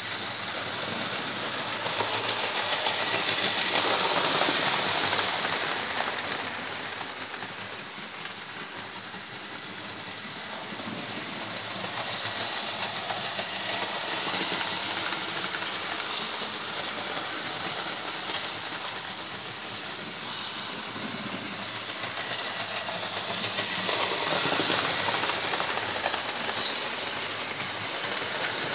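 Hornby Coronation Scot model trains running around a model railway layout: a steady rattle and motor whir of locomotive and coaches on the track that grows louder as a train passes close, about four seconds in and again near the end.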